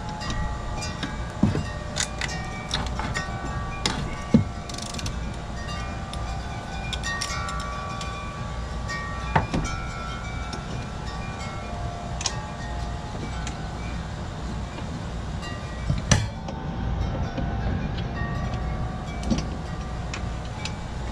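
Hand wrench working the centre blade bolt of a Honda HRX217 mower: a few sharp metal clicks and knocks, the loudest about 4, 9 and 16 seconds in. Scattered short ringing tones sound over a steady low background rumble.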